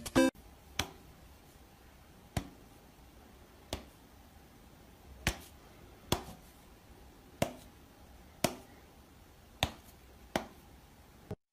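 About nine short, sharp smacks at uneven intervals of roughly one to one and a half seconds, as a cat swats at a person's hand.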